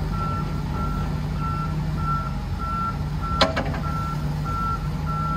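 Vehicle reversing alarm beeping steadily, a bit under two beeps a second, over the low, steady running of a heavy machine's engine. A single sharp knock comes about three and a half seconds in.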